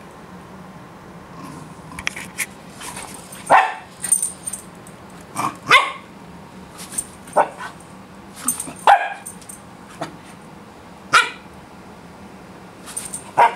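Pembroke Welsh Corgi puppy barking and yipping at his owner's moving feet: about six loud, short barks spaced a second or two apart, with quieter little noises between.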